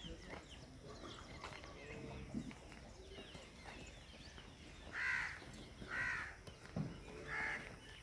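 Crows cawing: three harsh calls about a second apart in the second half.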